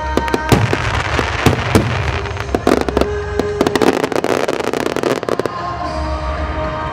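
Aerial fireworks shells bursting in a rapid barrage of sharp bangs and crackles, over music with held tones. The barrage stops about five and a half seconds in, leaving the music.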